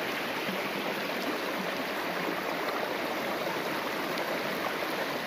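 Steady rushing of the East Fork of the San Gabriel River flowing.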